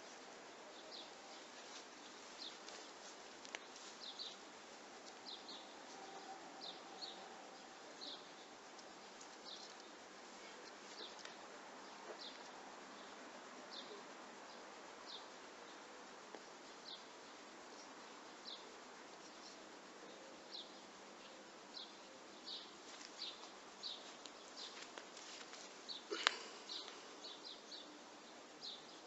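Faint, repeated short high chirps from a small animal, a bird or insect, every half second to a second or so, with one sharp click near the end.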